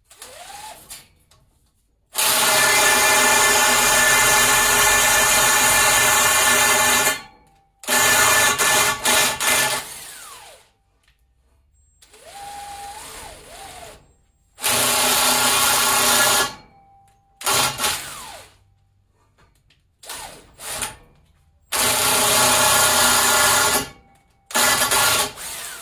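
Cordless drill driving an expander tool inside the end of 3-inch steel exhaust tubing, flaring the pipe. The drill runs under load in repeated bursts, one about five seconds long and the rest from under a second to about two seconds, winding down after each release of the trigger.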